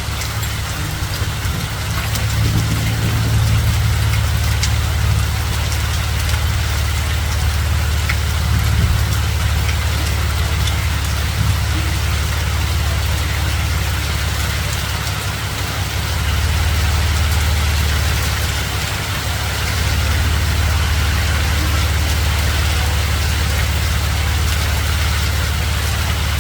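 Hail falling hard: a dense, steady patter of hailstones striking hard surfaces, with a steady low rumble underneath.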